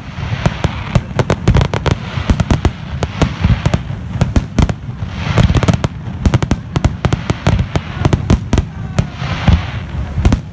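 Fireworks display: aerial shells bursting in a dense, continuous barrage, several sharp bangs a second over deep booms.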